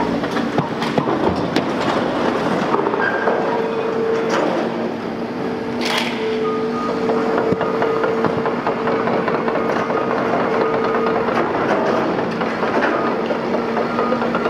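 Liebherr R930 demolition excavator running under hydraulic load as its shear cuts into a building, with a steady hum and a whine that holds for several seconds and then stops. Constant crunching and clattering of breaking material and debris, with one sharp crack about six seconds in.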